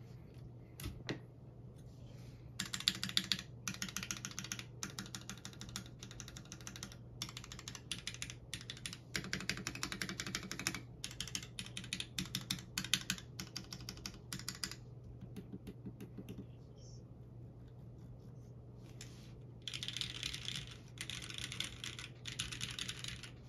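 Typing on a Mercutio 40% mechanical keyboard with lubed Gateron Yellow KS-3 linear switches and blank ABS keycaps, in a bare FR4 plate-and-bottom sandwich with no foam: fast runs of keystrokes. The keystrokes stop for a few seconds past the middle, then resume.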